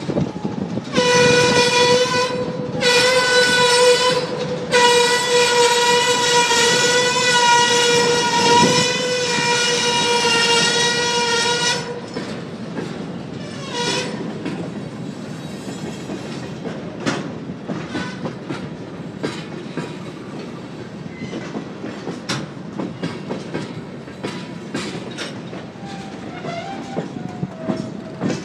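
Union Pacific 4522's locomotive air horn sounding two short blasts and then one long blast of about seven seconds. After that the train rolls on, with repeated wheel clicks on the rail joints over a steady rumble.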